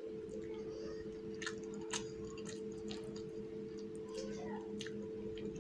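A person chewing a mouthful of rice and fish curry, with scattered wet lip-smacks and clicks, over a steady low hum.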